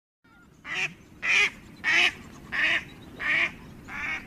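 A duck quacking: a series of six harsh quacks, about one every two-thirds of a second, the last few growing fainter.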